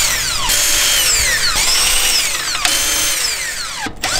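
Cordless impact wrench zipping out the wheel bolts of a car, in spells of about a second each with short breaks, its whine falling in pitch during each spell.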